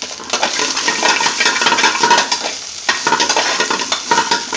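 A large metal spoon stirring and scraping around a metal frying pan, with many clicks and scrapes over the sizzle of spinach and paneer cubes frying in oil. There is a brief pause in the stirring about three seconds in.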